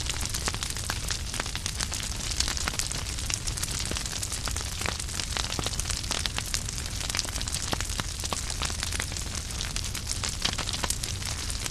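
Wood fire crackling in a fireplace: many sharp, irregular crackles and pops over a steady hiss of flames, with a low rumble underneath.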